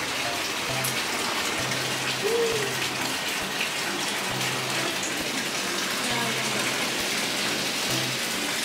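Hot-spring water pouring steadily into an open-air bath tub, an even rush of splashing water.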